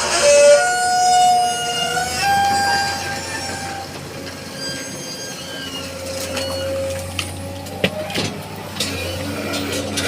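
Excavator working, its steady engine hum overlaid by long high-pitched squealing tones that shift slightly in pitch, with a few sharp knocks near the end.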